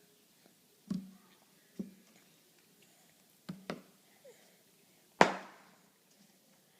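A few sharp knocks and taps at irregular intervals. The loudest comes about five seconds in and rings out briefly.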